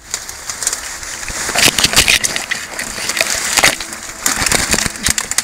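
Leaves, twigs and branches rustling, snapping and scraping against a rifle and its mounted camera as it is pushed through dense brush: a thick run of crackles that grows louder about a second and a half in.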